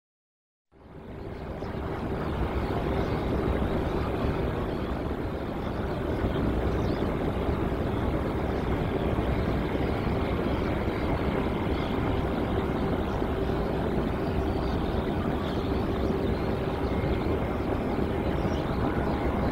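Jet airliner engine noise, a steady rush with a constant hum, fading in just under a second in and holding steady.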